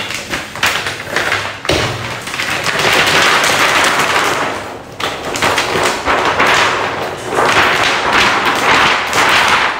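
Loud handling noise: dense rustling and crackling with thumps and taps, swelling and fading several times.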